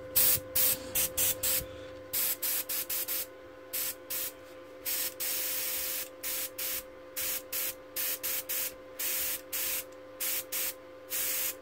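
SP180K dual-action gravity-feed airbrush blowing air in short hissing bursts as the trigger is pressed and released over and over, with one longer burst of about a second near the middle. A faint steady hum runs underneath.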